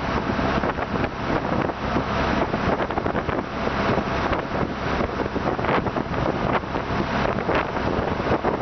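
Motorboat under way: a steady engine drone under rushing water, with wind buffeting the microphone.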